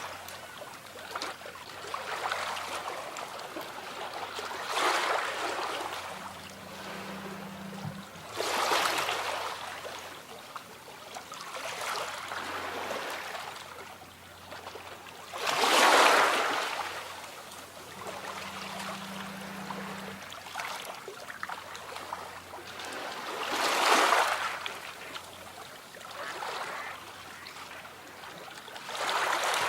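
Small sea waves washing onto the shore: a rushing hiss that swells and falls away every few seconds, one surge after another, the strongest about halfway through.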